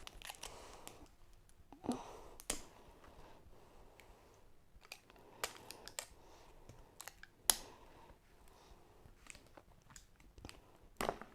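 Hands working at plastic toy packaging: scattered small clicks and taps, with sharper snaps about two, two and a half and seven and a half seconds in.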